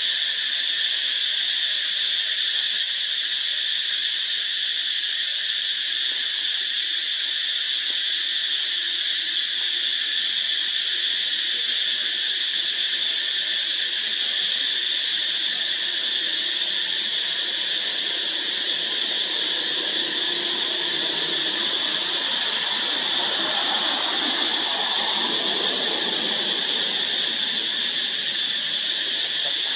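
Dense, steady high-pitched drone of a daytime insect chorus, unbroken throughout.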